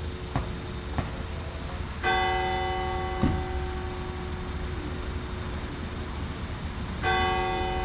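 A church bell of the Basilica of Our Lady of Bon-Secours tolling slowly after a funeral, two strikes about five seconds apart, each ringing on with several steady tones. There is a short knock just after the first strike and a steady low rumble of wind underneath.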